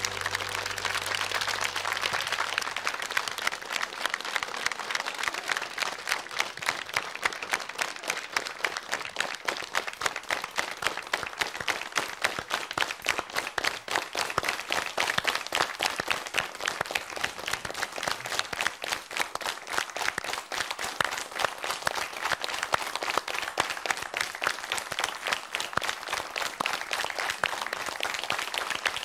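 Studio audience applauding. The clapping soon falls into a steady, even beat, clapping in unison.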